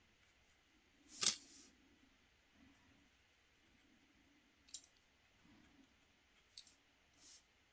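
Small clicks from watercolour painting tools at the desk: one sharp click about a second in, two fainter ticks later, and a brief soft scrape near the end.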